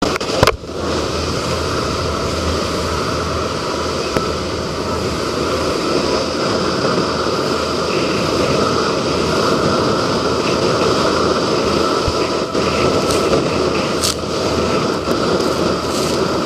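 Open thrill-ride speedboat running at speed: a steady rush of engine, wind and water spray, with a few short knocks, the loudest about half a second in.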